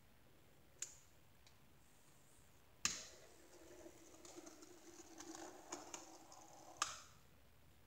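Small HOn30 model locomotive running on the layout's track: a faint steady motor hum with light ticking, set off and ended by sharp clicks about three and seven seconds in, with one lighter click near the start.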